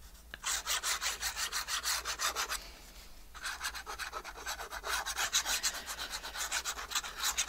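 Fine-tip glue bottle drawn along the edges of a paper pocket while laying lines of glue: quick, scratchy rubbing strokes, several a second, with a short pause about three seconds in.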